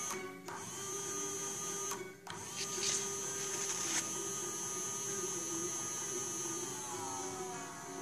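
Small DC motor with an aluminium disc on its shaft, driven through an LMD18200T H-bridge, running with a steady whine. It cuts out briefly twice in the first few seconds, and its pitch falls slowly near the end as the motor slows down.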